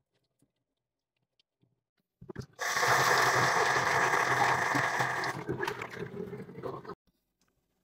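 Kitchen tap running, its stream splashing over a tomato held in the hands and into a stainless steel bowl in the sink. It starts about two and a half seconds in after a couple of clicks, and breaks up and stops about a second before the end.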